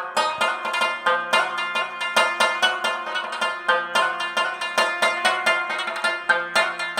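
Background music: a plucked string instrument playing a quick, busy run of notes.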